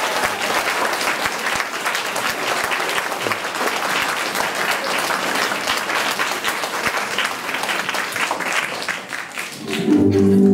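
Audience applauding, the clapping thinning out near the end; music starts in just before the end.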